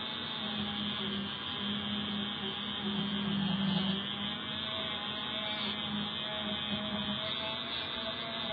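Dremel rotary tool running steadily, its small buffing wheel rubbing lightly along guitar fret wire to polish the frets, a constant motor hum under the rub.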